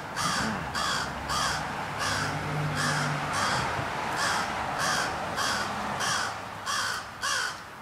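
Crow giving a rapid, even series of short caws, about two and a half a second, some twenty in all.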